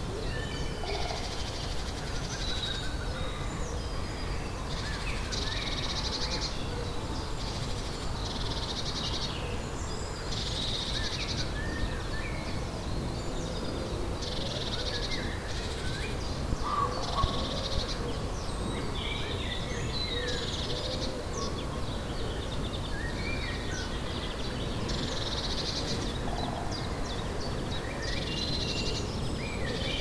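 Wild birds singing in woodland: one bird repeats a short, bright song phrase every few seconds while others chirp in between. A louder, lower call comes about 17 seconds in, over a steady low background rumble.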